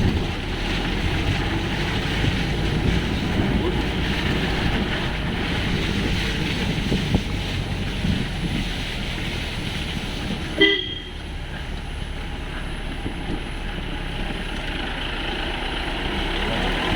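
Off-road jeep engine running under load while lurching over a muddy, rutted track, with a steady rumble and knocks. A short horn toot sounds about ten seconds in.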